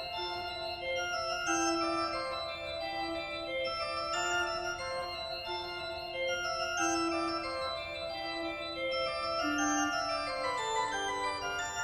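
Slow organ-style keyboard music: a melody of long held notes that move step by step over sustained chords.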